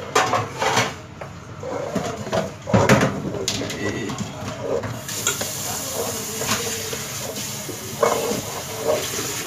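Stainless steel pot handled and knocked on a kitchen counter, with the sharpest knock about three seconds in. A steady hiss starts about halfway, with faint voices behind.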